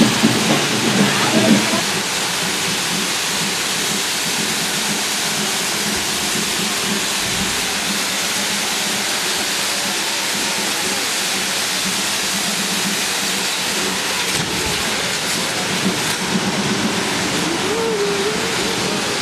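Hand-held correfoc fireworks (carretilles) burning with a steady, dense hiss as they spray showers of sparks.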